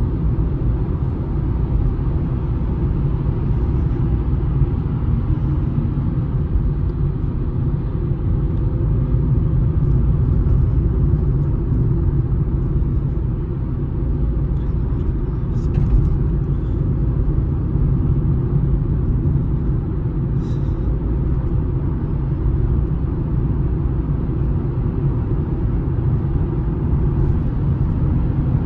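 Steady low rumble of a car driving, heard from inside the cabin: engine and tyre noise on the road, with a faint click or two.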